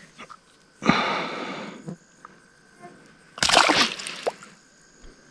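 Water splashing twice as a small fish is let go back into the pond: a short splash about a second in that fades out, then a louder splash past the middle.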